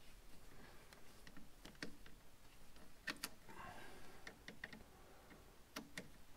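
Faint, scattered clicks from a screwdriver turning a hose clamp, several coming in close pairs.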